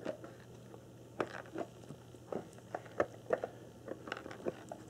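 Irregular light clicks and knocks from something loose shifting inside the boxed HO brass Ken Kidder EB20 locomotive as the box is tilted and turned, about a dozen over a few seconds. These are 'not good sounds', a sign that something inside may be loose or broken.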